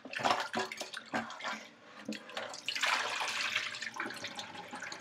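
Water sloshing and splashing as chicken pieces are rubbed by hand in a bowl of wash water, then a steady rush of water poured from a stainless steel bowl into a kitchen sink, starting about two and a half seconds in and easing to a trickle near the end.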